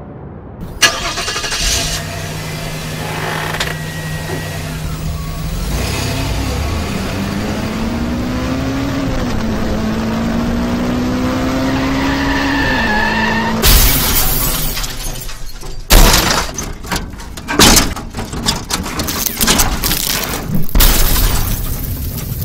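Produced advertisement soundtrack of music and sound effects: a low, engine-like drone whose pitch glides up and down through the middle, then a run of sharp hits and clicks over the last third.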